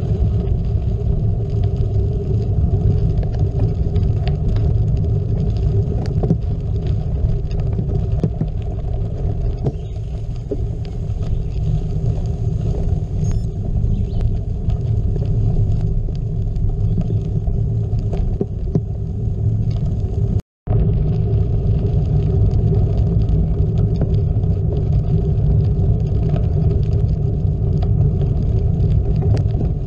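Gravel bike tyres rolling over a gravel road, a steady low rumble with small clicks and rattles from the loose stones, heard through a bike-mounted GoPro. The sound breaks off for a split second about two-thirds of the way through.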